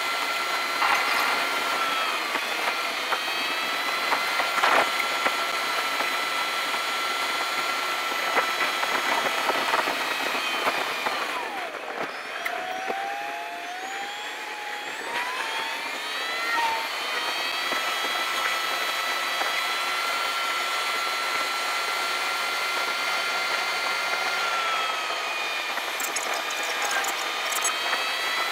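Car engine and road noise inside the cabin, sped up so that it comes out as a steady high whine. About halfway through, the pitch and level drop as the car slows, then the whine climbs back up over the next few seconds as it speeds up again.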